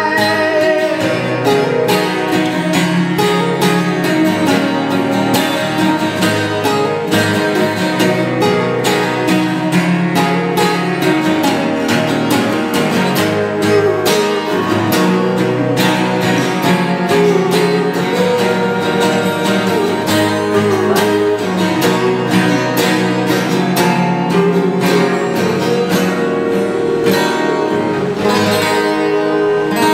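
Music: a strummed acoustic guitar playing a song, with a steady strumming rhythm throughout.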